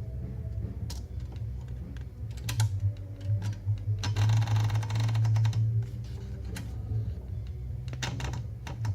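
Adler J2 portable mechanical typewriter being typed on: separate key strikes, with a dense rattling run of clicks about four seconds in. A steady low hum runs underneath.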